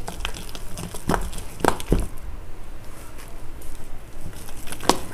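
A hand beating thick urad dal batter in a steel bowl to make it fluffy: wet squishing with a few sharp clicks, about a second in, around two seconds, and near the end.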